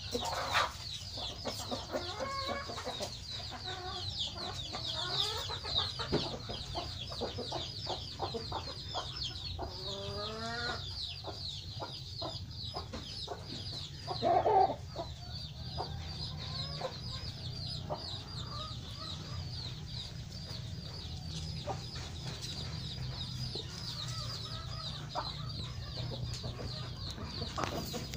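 Chickens clucking, over a constant rapid run of high, falling chirps. One louder call comes about fourteen seconds in.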